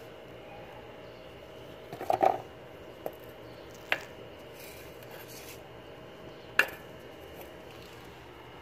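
A metal tin and its plastic lid being handled: a quick cluster of clattering knocks about two seconds in, then a few single sharp taps.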